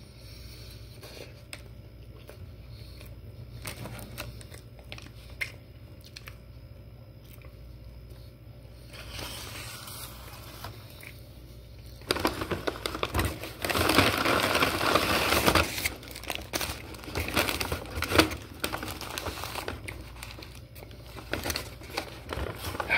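Quiet chewing at first, then about halfway through a brown paper takeout bag is picked up and handled, crinkling and rustling loudly in irregular bursts.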